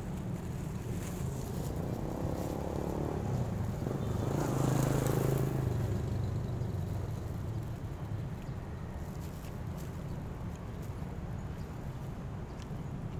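Steady street traffic rumble, with a motor vehicle passing that swells to its loudest about five seconds in and then fades. A few faint crinkles from a plastic food bag.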